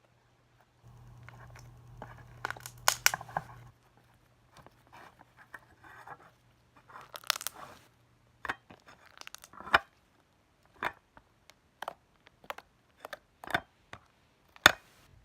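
Slime being squeezed and stretched by hand, giving irregular sticky pops and crackles, with a few denser clusters of crackling about three, seven and ten seconds in.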